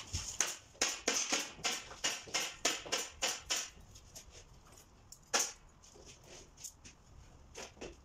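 Pneumatic nail gun firing into asphalt roofing shingles on a wooden roof: a quick run of about a dozen sharp shots, roughly three a second, then a single loud shot about five seconds in and two lighter ones near the end.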